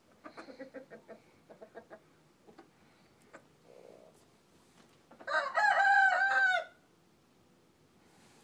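Thai game rooster crowing once, a short crow a little over five seconds in, after a run of quiet clucking in the first two seconds.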